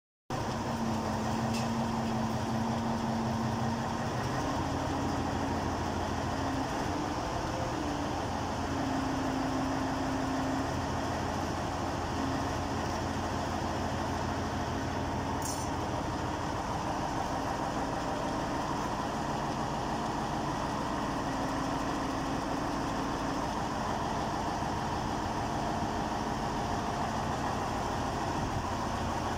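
Engine of the crane lifting the hydraulic cylinder, running steadily, with a humming tone that steps up in pitch a few times in the first ten seconds and then holds.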